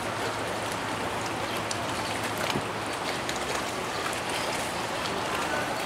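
Steady rush of water along the hull of the Thomas Rennie ferry, over the low, even hum of its engine as it comes in to dock.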